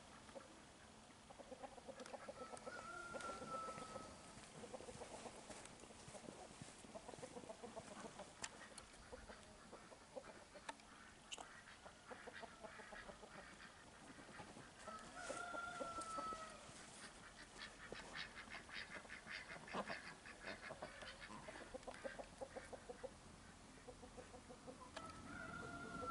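Faint clucking of domestic chickens. A short falling call comes about three seconds in, again about halfway through and near the end, with a run of quick clucks in between.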